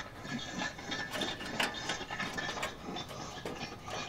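Metal barbecue grill parts clattering and scraping while they are being fitted back into the grill, a quick irregular run of clicks and knocks.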